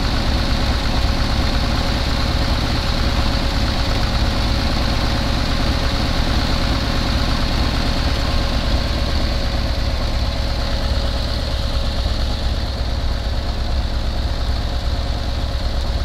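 Carbureted engine idling steadily at operating temperature, close up and loud, with one quart of Marvel Mystery Oil in its oil. No lifter tick stands out; the owner says the tick was not present with the Marvel Mystery Oil in.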